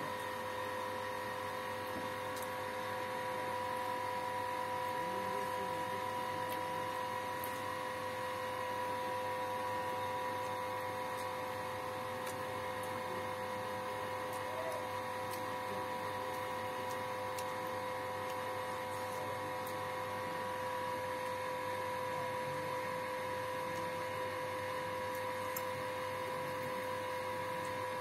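A steady mid-pitched electrical hum, with a few faint light clicks over it.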